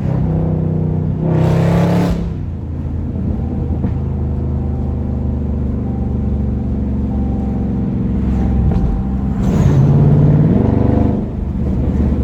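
2019 Dodge Charger Scat Pack's 392 Hemi V8 running, with two brief swells in revs, one near the start and a longer one near the end.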